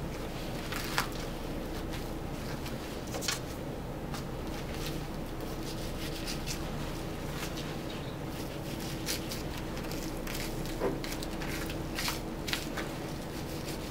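Soft, scattered clicks and wet handling sounds of a knife working along the seams of a beef chuck roll as hands pull the meat apart, over a steady faint hum.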